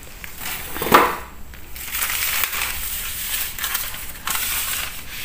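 Newspaper rustling and crinkling as it is laid on a tile floor with a heap of crumbly rat-poison bait on it, with one short sharp sound about a second in.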